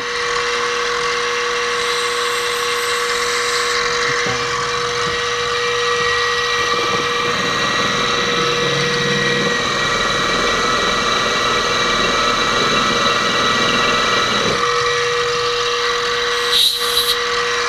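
Benchtop milling machine's spindle running with a steady whine while a counterbore is cut into a metal block; the noise of the cut joins in about four seconds in and stops near fifteen seconds. A short scrape near the end.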